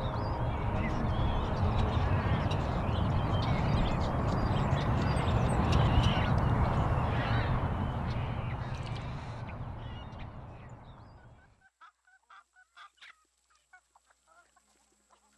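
A flock of birds calling, many short calls over a dense outdoor rumble; it fades out about eleven seconds in, leaving a few faint clicks.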